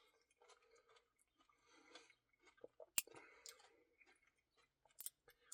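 Faint chewing of soft ice cream with cookie pieces, with a sharp click about three seconds in.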